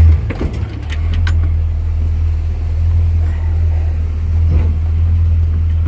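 1957 Chevrolet convertible's engine and exhaust running with a steady low drone while driving, its exhaust manifold leak freshly sealed. A few light clicks sound in the first second or so.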